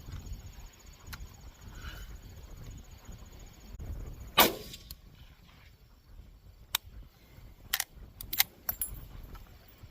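A single rifle shot from a Winchester Model 94 lever-action .30-30, a sharp crack with a short echoing tail about four seconds in, followed a few seconds later by several sharp metallic clicks as the lever is worked.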